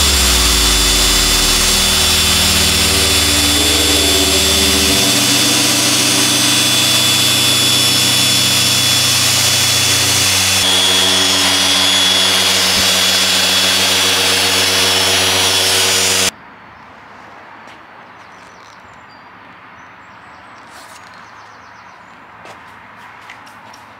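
Dual-action orbital polisher running with a foam pad on car paint, a steady loud whirr, cutting off suddenly about sixteen seconds in. A few faint clicks follow.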